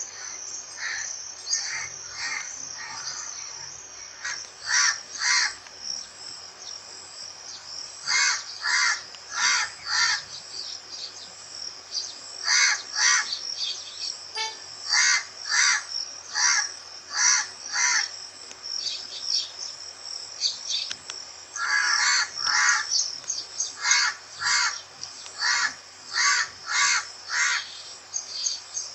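Crows cawing in runs of two to five harsh calls, with pauses of a few seconds between runs, over a steady high-pitched buzz.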